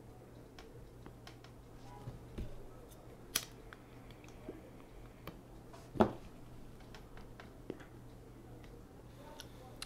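A tobacco pipe being smoked: soft puffs and small scattered clicks of lips and teeth on the stem as the smoker draws, the loudest puff about six seconds in, over a faint steady hum.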